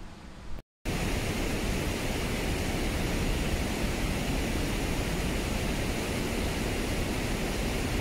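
River water rushing steadily over wide, shallow rapids, starting suddenly after a brief drop-out a little under a second in.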